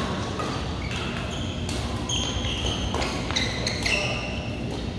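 Badminton rally: several sharp racket hits on the shuttlecock and short high squeaks of court shoes on the mat, over the steady hum of a large hall.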